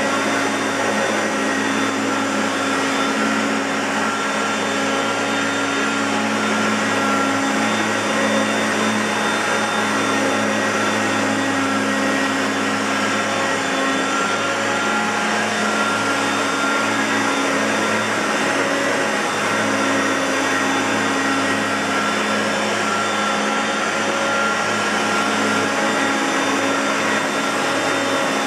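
Hoover Concept Two Electronic upright vacuum cleaner running steadily: a constant motor whine with several steady tones over a broad rush of airflow.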